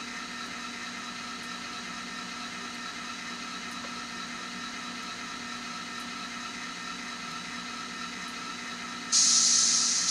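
N scale model diesel locomotive's DCC sound decoder playing a steady diesel engine hum through its tiny speaker. About nine seconds in, a sudden loud burst of air hiss cuts in.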